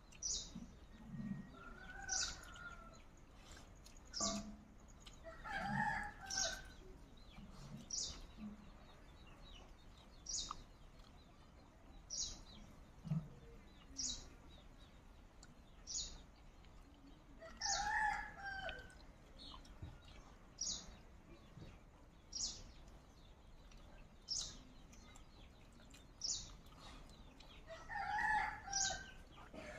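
Chickens calling a few times, about six seconds in, midway and near the end, over a bird's short high-pitched call that repeats about every two seconds.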